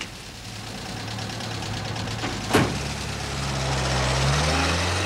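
Lorry engine running and growing louder, its note rising after a sharp knock about two and a half seconds in.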